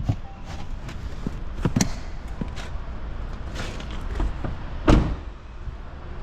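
A few scattered knocks and clunks, the loudest about five seconds in, over a steady low rumble.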